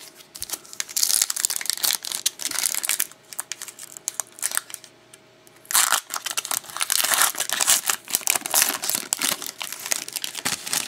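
Foil wrapper of a 2011-12 Elite hockey card pack crinkling and being torn open, in two spells: one about a second in, and a longer one from about six seconds in.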